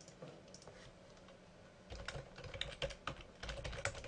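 Typing on a computer keyboard: a few faint key taps, then a quick run of keystrokes from about two seconds in.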